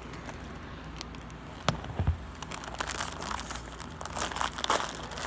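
A foil snack-chip bag crinkling and rustling as it is worked open with one hand, with a sharp click about a second and a half in.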